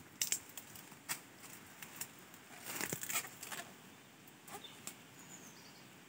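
Clear plastic grafting film crackling and rustling in irregular bursts as it is pulled out and wrapped tightly around a graft joint, busiest about three seconds in.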